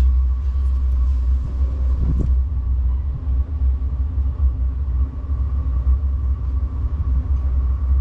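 Diesel air heater running during its start-up, before full heat: a steady low rumble with a constant whine above it.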